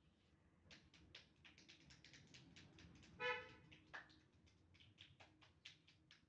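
Near silence with faint scattered clicks, broken by one short pitched beep a little over three seconds in and a brief rising chirp about a second later.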